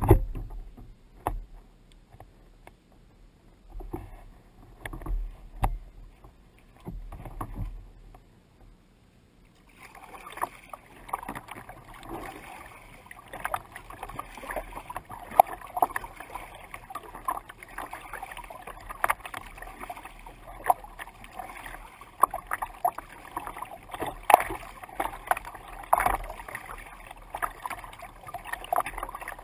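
Lake water slapping against a kayak's hull close to the bow. For the first ten seconds it comes as separate slaps and knocks; from about ten seconds in, it becomes a continuous rush and gurgle of water along the hull, with frequent splashes, as the kayak moves through the chop.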